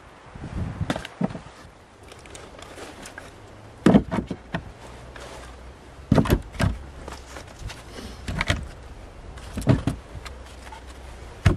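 Split firewood pieces knocked down and stacked onto the wooden shelves of a log store: hollow wooden clunks every second or two, a few of them sharp and loud.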